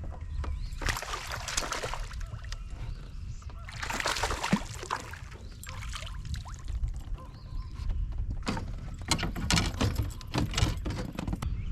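Water splashing and sloshing against a fishing kayak in several bursts, the longest near the end, over a steady low rumble.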